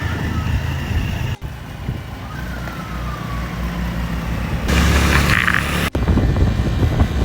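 Motor scooter running on the road, its engine a steady low rumble mixed with road and wind noise. The sound breaks off sharply twice, and it is louder and noisier for about a second before the second break.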